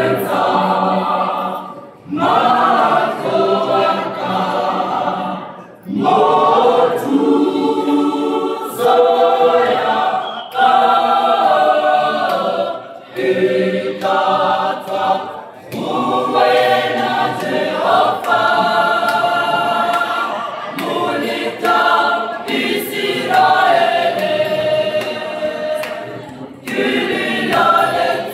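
Gospel choir of women's and men's voices singing a cappella in harmony, in phrases broken by short pauses.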